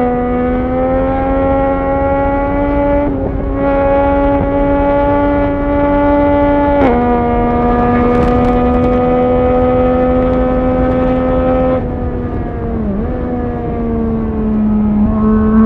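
Motorcycle engine running at high, steady revs with wind rushing past the microphone. The note dips sharply twice, about three and seven seconds in, as it shifts up a gear. Near the end the throttle closes and the note falls away.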